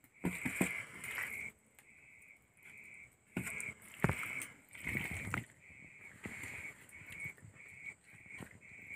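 Hands scooping marinated chicken in a steel bowl and stuffing it into a green bamboo tube: scattered wet squelches and knocks against the bowl. Behind it, a high chirp repeats about twice a second.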